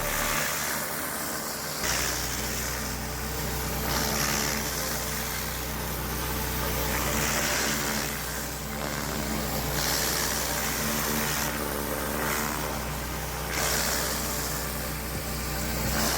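Gas-engine pressure washer running steadily, with the hiss of high-pressure water spraying that swells and fades every two to three seconds.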